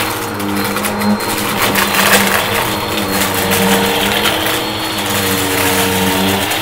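Bagless upright vacuum running on a shag rug, its motor humming with tones that shift up and down in pitch as it is pushed back and forth. Bottle caps and other crunchy debris crackle and rattle continuously as they are sucked up into the canister.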